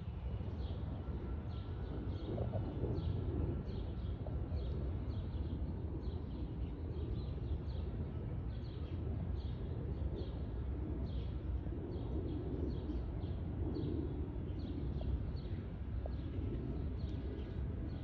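A small bird repeating a short, high chirp about twice a second, over a steady low rumble of city traffic.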